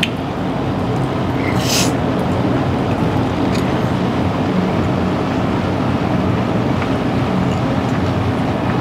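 Steady restaurant dining-room background noise, an even rumble and hiss, with a brief high hiss about two seconds in.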